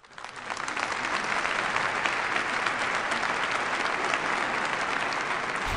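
Audience applauding, many hands clapping in a steady patter that fades in at the start. Music cuts in at the very end.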